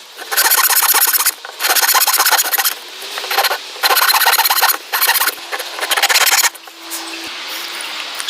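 A hand tool cutting or shaping wood: about five rasping strokes, each around a second long, that stop about six and a half seconds in.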